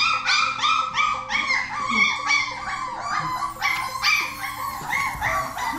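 A litter of young Alusky puppies whining and yipping: a rapid string of high-pitched cries, about three to four a second, that thins out near the end.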